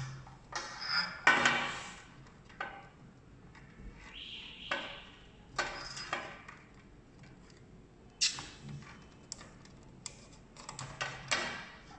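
Handling noise from a portable gas stove's plastic base: scattered clicks, taps and knocks as a hose connector is fitted onto the stove's gas inlet port. A brief soft rustle comes about four seconds in.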